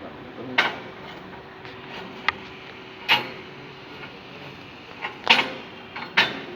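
About five short, sharp knocks and clicks spread unevenly over a few seconds, typical of welding gear and metal pieces being handled and set down, over a faint steady hum. No arc is burning.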